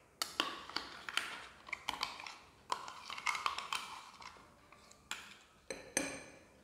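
A steel spoon scraping ground coconut chutney out of a stainless-steel mixer-grinder jar into a glass bowl. It makes a run of irregular sharp clinks and short scrapes of metal on metal and glass.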